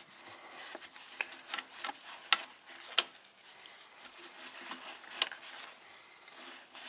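Hand cleaning of a throttle body: soft rubbing and scrubbing on the throttle plate and bore, broken by a handful of short, sharp clicks.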